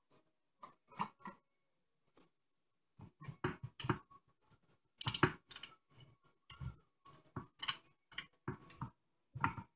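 Light handling noise: a cleaning rag rustling, with small clicks and taps against an AR-15 rifle, coming as short irregular sounds.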